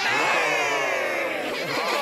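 Many cartoon characters, children and grown-ups, laughing together at once in a dense, overlapping chorus of voices.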